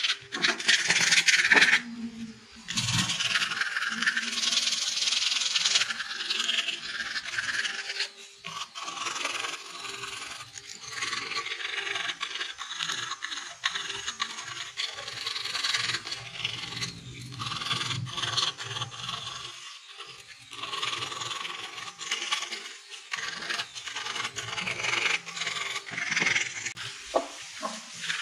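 Sandpaper rubbed by hand over a carved wooden horse sculpture: repeated rasping strokes of abrasive paper on bare wood. The strokes are loudest in the first couple of seconds.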